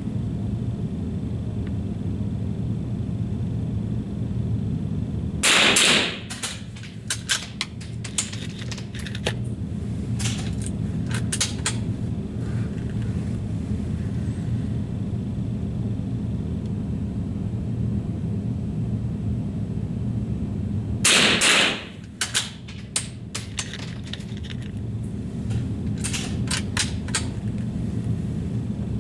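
Two rifle shots about fifteen seconds apart, each followed by a few seconds of scattered sharp clicks, over a steady low rumble of wind on the microphone.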